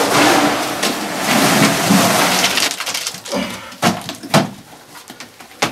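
Wet concrete mix of cement, sand and crushed stone tipped out of a bucket onto the floor: a gritty rushing slide of gravel and mortar for about three seconds, then a few sharp knocks and scrapes as the bucket and trowel work the last of it out.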